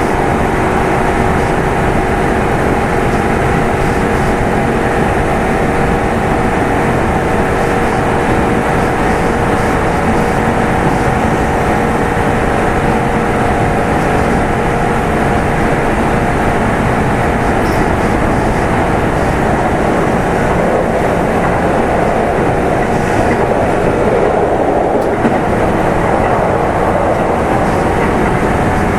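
Kintetsu 2800 series electric train running, heard from inside motor car Mo 2811: a steady hum of the traction motors and gears, several held tones, over wheel and rail rumble, with rougher rolling noise for a few seconds past the middle.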